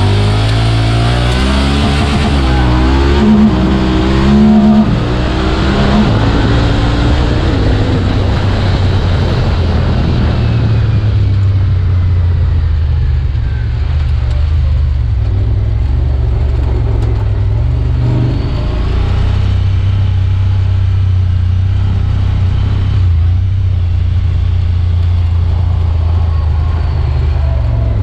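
Honda Talon side-by-side's parallel-twin engine driving the vehicle, heard from inside the cab. For the first several seconds its pitch rises and falls as it revs up and down, then it settles into a steadier run.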